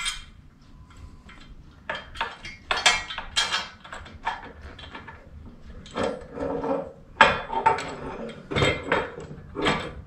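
Irregular metal clicks, clinks and taps as a motorcycle luggage rack's bolt, washers and spacer are worked into the frame mount.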